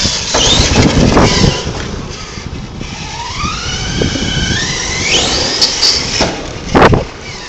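Electric RC monster truck on a 4S battery: its motor whine climbs steadily in pitch as it accelerates, over tyres scrubbing on asphalt. A short loud scrubbing burst comes near the end.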